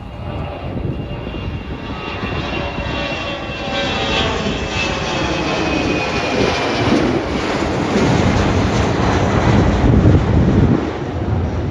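Jet airliner passing close by. Its engine whine falls steadily in pitch over a heavy rumble, growing louder to a peak near the end, then dropping off suddenly.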